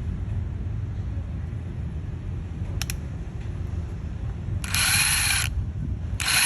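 Small motor running with a steady low rumble. There is a click about three seconds in, and two short bursts of high hiss near the end.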